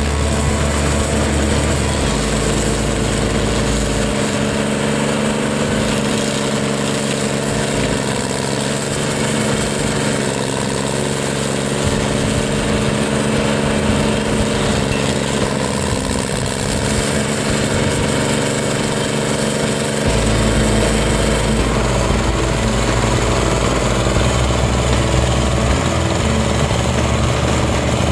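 Red Roo SP7015 stump grinder's engine running steadily under load while its cutter wheel grinds a tree stump. The sound gets a little louder about two-thirds of the way in.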